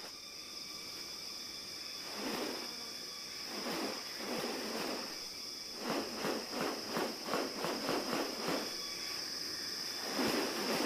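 Steady high-pitched insect drone, with a series of short rustling noises over it: a few scattered ones, then a regular run of about two a second in the middle.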